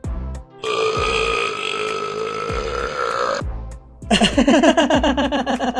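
Two long burps in a burping contest, one after the other: the first held steady for about three seconds, the second starting about four seconds in with a wobbling pitch. Light background music plays under them.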